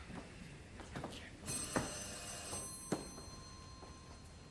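Doorbell ringing once, a bright high ring lasting just over a second, followed by a thinner lower tone that holds for about a second and a half. Two short thuds fall during the ring.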